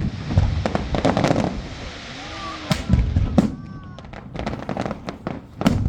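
New Year's Eve fireworks going off all around: a rapid, irregular string of sharp firecracker and rocket bangs with crackling between them. Loud reports come near the start and again near the end.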